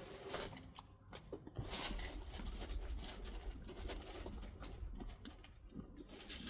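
Horses feeding and jostling at the feed: scattered rustles and knocks, with a low rumble from about one and a half to four and a half seconds in.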